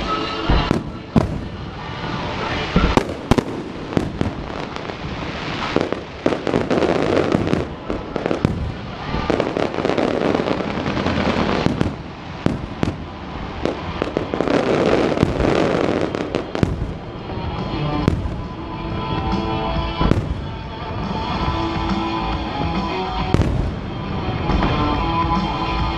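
Fireworks display: aerial shells bursting one after another with sharp bangs and dense crackling, over music.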